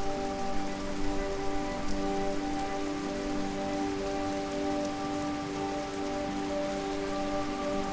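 Waterfall: a steady, even rush of falling water, with soft held tones of ambient music sounding beneath it.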